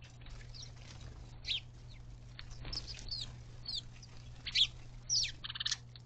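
A flock of house sparrows chirping: scattered short, falling cheeps, the loudest about two-thirds of the way in, with a brief buzzy note just before the end.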